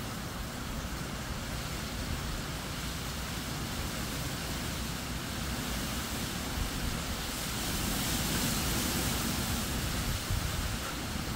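Hurricane-force wind rushing through a tall queen palm, its long fronds rustling and thrashing, with the wind buffeting the microphone in a low rumble. A stronger gust builds about seven seconds in and eases near the end.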